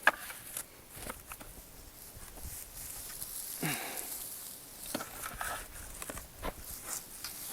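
Digging in a garden bed: a garden fork and hands turning and sifting loose soil and compost, with scattered crunches and rustles.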